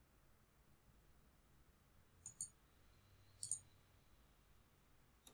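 Two computer mouse clicks about a second apart, each a quick double tick of button press and release, over a faint low hum.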